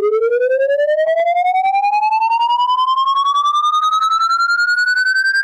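Electronic tone gliding steadily upward in pitch, from low to high, pulsing about eight times a second: a rising pitch sweep played as a test sound.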